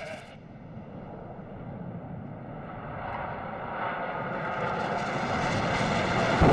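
Low-flying aircraft approaching, its engine noise growing steadily louder over several seconds and becoming very loud at the very end.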